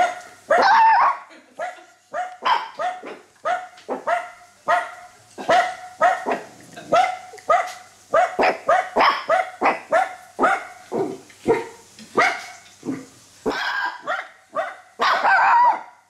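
A dog barking over and over, about two short barks a second, with longer, louder barks about half a second in and again near the end.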